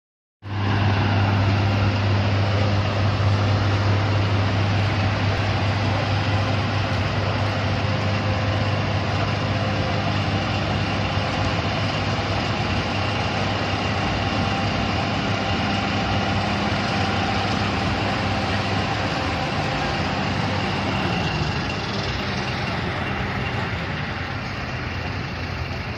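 Large diesel engine running steadily with a deep, even hum. About 21 seconds in, its pitch dips and it eases off slightly.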